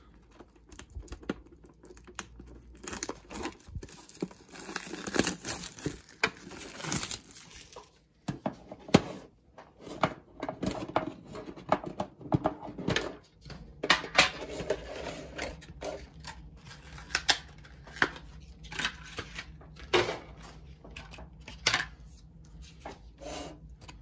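Plastic shrink-wrap being torn and crinkled off a metal Pokémon card tin, for several seconds. After a short break comes a string of sharp clicks, taps and rustles as the tin and its cards are handled.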